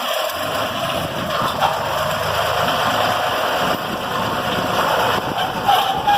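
Engine of heavy road-work equipment running steadily while it breaks up the old road surface.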